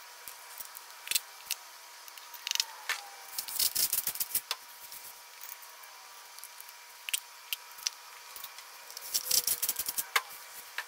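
Scattered sharp clicks and light metallic taps of hand tools at work on an LS V8 short block, as a wrench on the crankshaft snout is used to turn the crank. The taps come in short clusters, with a faint steady tone underneath.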